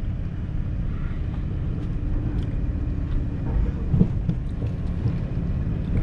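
Low, steady rumble of a heavily loaded van rolling slowly onto a ferry deck, heard from inside the cab. About four seconds in there is a single thump as the low-riding van jolts over the ramp.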